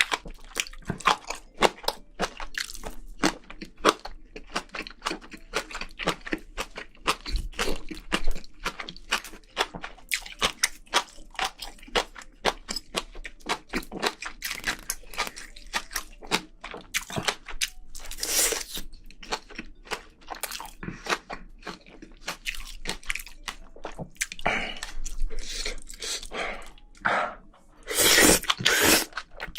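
Close-miked chewing of spicy braised seafood and vegetables: a dense run of crisp, wet crunching clicks several times a second, with a few longer, louder crunches around the middle and near the end.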